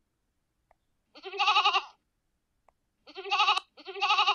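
Goat bleating: three quavering bleats, the last two close together.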